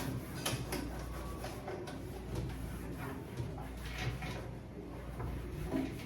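Damp cloth being handled and rubbed over the inside of a microwave oven, with scattered light knocks and scrapes against its walls and door, over a steady low hum.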